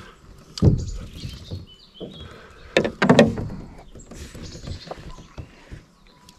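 Water sloshing and dull knocks around a small boat, with two loud knocks: one under a second in and one about three seconds in.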